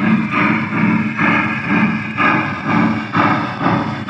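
Steam chuffs played by the Proto-Sound 3 sound system of an MTH One Gauge Big Boy model locomotive through its upgraded speaker, a steady, even beat of about two chuffs a second.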